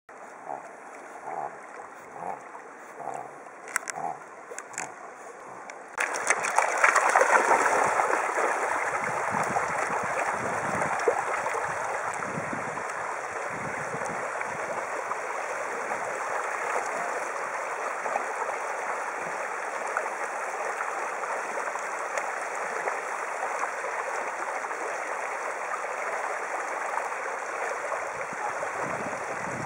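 Shallow river rushing over stones, a steady loud rushing that starts abruptly about six seconds in as a small dog swims and wades through the current. Before that, quieter water with soft short sounds about every two-thirds of a second.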